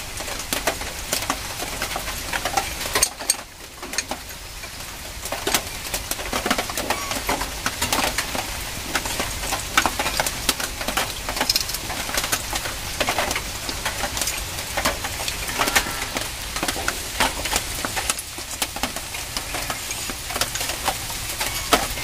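Metal scraping and clicking of a screwdriver levering against the old brake pads to push the pistons back into a Bajaj Pulsar's front disc brake caliper. The clicks and scrapes come in quick, irregular runs.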